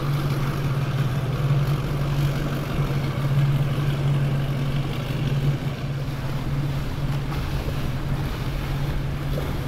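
Cigarette Racing AMG-edition offshore powerboat's engines running at a slow cruise: a steady low drone, with the wash of water along the hull.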